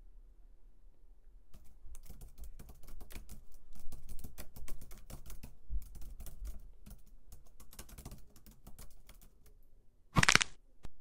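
Typing on a computer keyboard: a quick, irregular run of key clicks lasting several seconds. Near the end comes a loud, short rush of noise.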